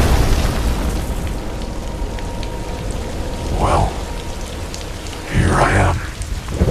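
Heavy rain falling steadily on pavement, with a short louder sound about halfway through and a bigger burst a little over five seconds in.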